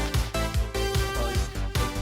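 Background electronic music with a steady, fast beat.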